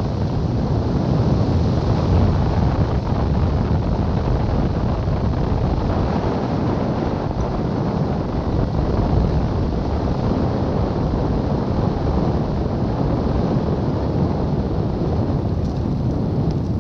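Loud, steady wind noise from the airflow rushing over the microphone of a camera mounted on a hang glider's wing, as the glider flies its landing approach.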